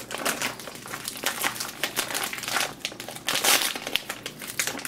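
Plastic bag crinkling as hands handle the frozen squirrel pieces inside it, in a run of irregular crackles.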